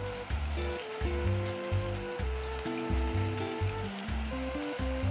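Ginger slices and shallots sizzling in hot sesame oil and caramelised sugar as they are stirred, a steady frying hiss. Light background music with changing held notes plays underneath.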